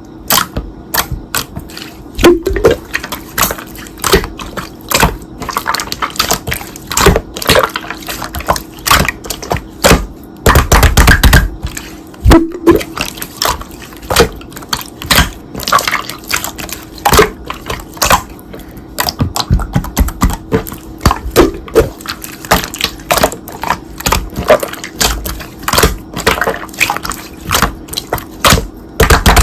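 Slime being squeezed, pressed and stretched by hand, making dense, irregular clicks, pops and wet squelches.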